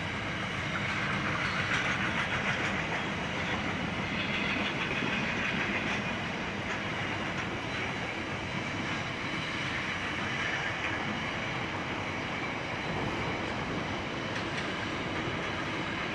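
Freight train's container wagons rolling across a viaduct: a steady rolling noise of steel wheels on rail, a little louder in the first few seconds.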